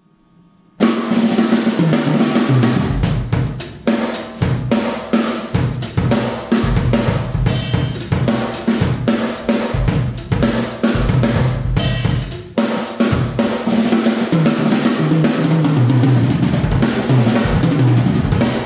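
A Yamaha Stage Custom Birch drum kit being played: snare, toms and bass drum struck in a continuous beat under cymbals and hi-hat. It starts about a second in and breaks off briefly twice.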